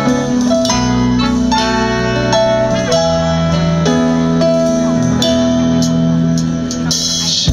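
Live pop band playing the song's instrumental intro: guitar and bass holding chords, with a cymbal wash near the end.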